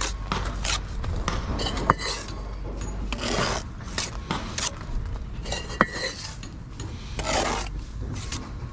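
Steel brick trowel scraping along bricks and wet mortar as squeezed-out mortar is cut away from the joint, in a run of short scrapes. Two sharp clicks of the blade on brick come about two seconds in and again near six seconds.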